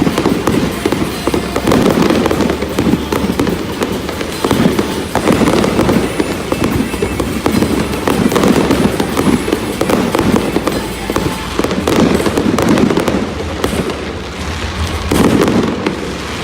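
Aerial fireworks bursting in rapid succession, a dense, continuous barrage of bangs and crackles.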